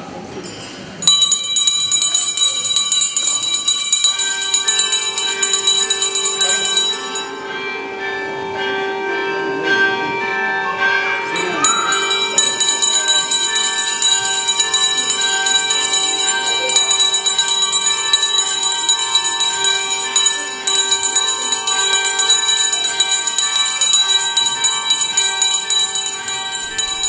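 Small hand bells shaken continuously, a steady jingling ring that starts sharply about a second in, as altar bells are rung before the Blessed Sacrament carried in procession.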